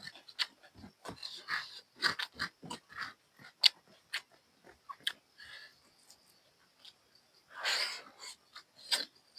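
Close-up mukbang eating sounds of buffalo curry and rice: irregular wet chewing, lip smacks and sharp mouth clicks, with a longer breathy sound about three-quarters of the way through.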